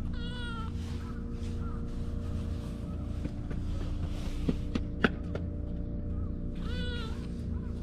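A kitten meowing twice: one short high meow at the start and another near the end, over a steady low hum. A few sharp clicks just past the middle, one of them the loudest sound.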